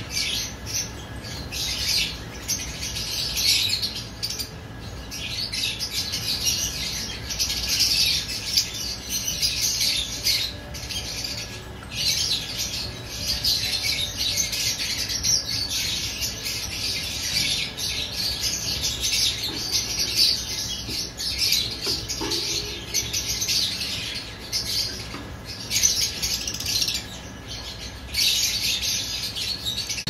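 A flock of lovebirds in an aviary chirping and chattering all at once: a continuous high-pitched chorus of overlapping calls.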